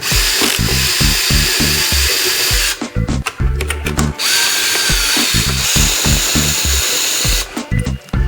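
A drill-like handheld power tool running in two long spells of a few seconds each, with a high whine, the second starting after a short pause. A steady music beat runs underneath.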